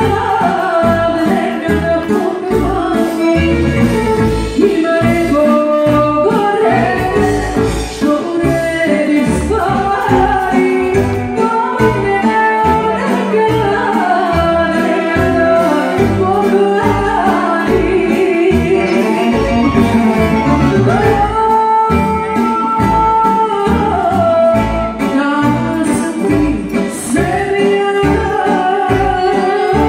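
A woman sings into a microphone over amplified live band music with a steady, pulsing bass beat; her vocal line slides and bends between notes.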